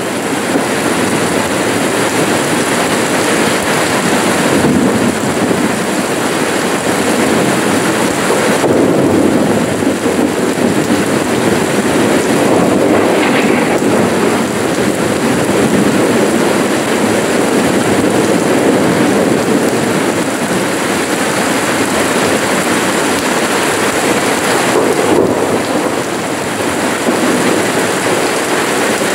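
Steady rain falling on a paved courtyard and garden plants: an even, dense hiss that barely changes.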